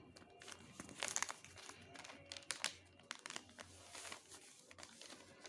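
A sheet of paper being handled and folded along a crease, with scattered crinkles and rustles that are densest about a second in and again around two and a half seconds.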